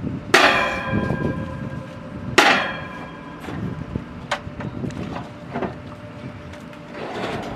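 Two loud ringing metal clangs about two seconds apart at a borewell drilling rig during casing fitting, each fading over about a second, followed by a few lighter knocks over a steady low rumble.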